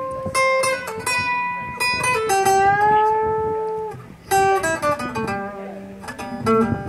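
Acoustic guitars played live: single plucked notes ringing out. In the middle, one long held note slides slightly upward. After a short break the notes come quicker.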